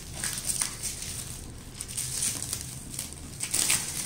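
Thin plastic wrapping crinkling and crackling in irregular bursts as it is peeled off a cardboard drone box, loudest near the end.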